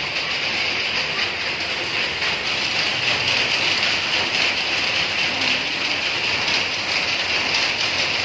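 Steady hissing background noise, strongest in the upper-middle range, holding the same level throughout.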